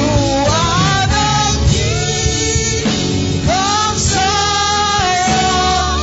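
Live gospel worship song: a lead singer with backing singers over instrumental band accompaniment, the voice sliding up into long held notes.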